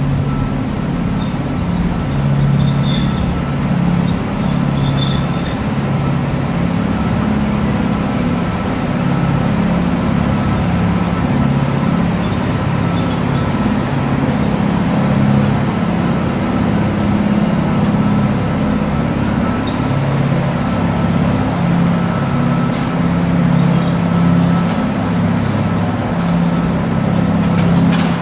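Stationary E656 electric locomotive humming steadily with its onboard auxiliary machinery running, a deep wavering drone with a faint steady whine above it.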